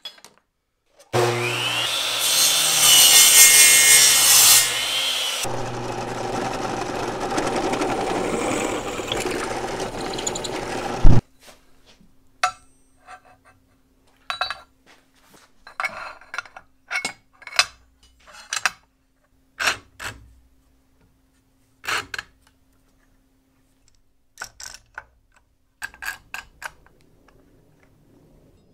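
A power saw cutting aluminum stock for about ten seconds, loudest and harshest in the first few seconds and stopping abruptly. Then scattered light knocks and clinks as the aluminum pieces are handled and clamped.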